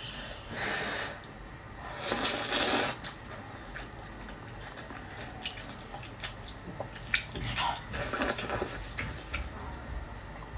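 Noodles in broth being slurped, a few long wet slurps, the loudest a couple of seconds in, with smaller wet mouth sounds of chewing between.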